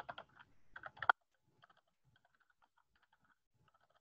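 Typing on a computer keyboard: a quick run of keystrokes in the first second, then fainter, scattered key taps.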